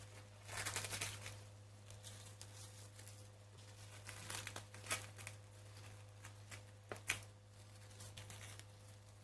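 Plastic cling wrap being peeled off the rim of a glass baking dish and crumpled into a ball: irregular crinkling and crackling, loudest about a second in and again near five and seven seconds in, over a steady low hum.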